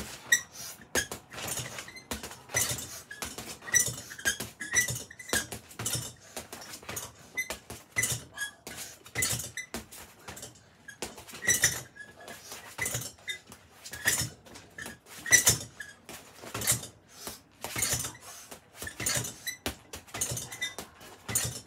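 Boxing gloves hitting a hanging heavy punching bag in a quick, uneven series of punches, two or three a second, with the bag's metal hook and bracket clinking as it swings.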